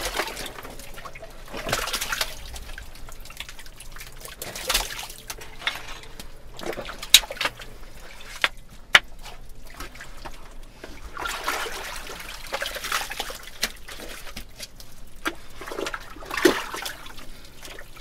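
Hands and a tool working through wet privy-pit muck: swells of squelching, sloshing noise every few seconds, with three sharp clinks near the middle.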